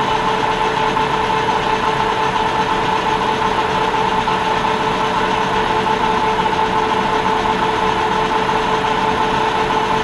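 Metal lathe running under power feed with a steady whine from its motor and gearing, turning brass hex stock at five thousandths of an inch per revolution.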